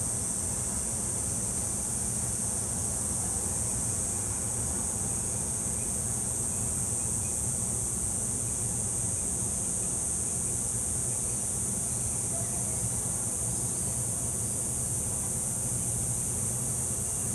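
Steady, continuous high-pitched drone of an insect chorus, over a low steady rumble.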